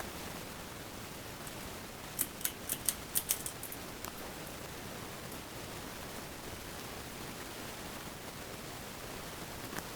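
Harbor Breeze Typhoon ceiling fan running with a steady airy whoosh, broken about two seconds in by a quick run of about eight light, sharp clicks.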